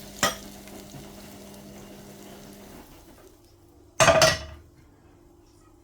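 Frying pan and cooking utensils being handled: a short tap at the start, a faint steady sizzle fading out after about three seconds, then one loud metal clank about four seconds in.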